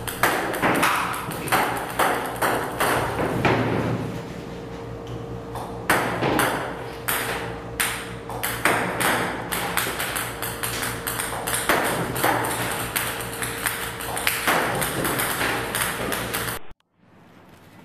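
Table tennis robot firing a rapid stream of ping-pong balls that click as they bounce on the table, several a second, over a steady hum. The sound cuts off suddenly near the end.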